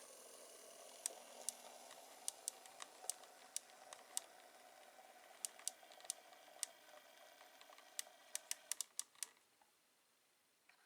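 Z-gauge V60 model locomotive running, its old three-pole motor giving a faint steady whir, with irregular sharp clicks from the wheels on the track. The whir stops about nine seconds in as the locomotive comes to a halt.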